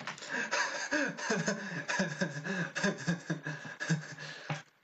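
A man laughing hard in a long run of quick, rhythmic bursts of laughter that stops abruptly near the end.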